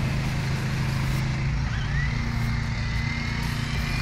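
Brushless electric motor of a Traxxas Slash 4x4 RC truck whining as it drives, rising slowly in pitch from about halfway in as it speeds up, over a steady low hum.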